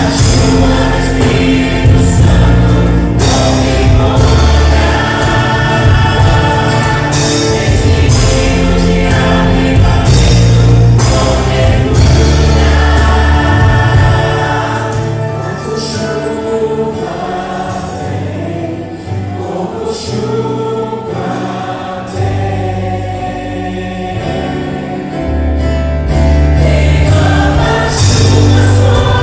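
Choir singing a Christian praise song over music with a heavy bass. The bass drops away for several seconds in the middle and comes back near the end.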